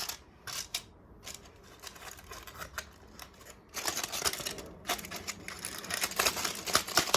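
A stone knocking and scraping against a washing machine's casing: a few separate knocks, then a dense run of rapid clattering and scraping from about halfway through.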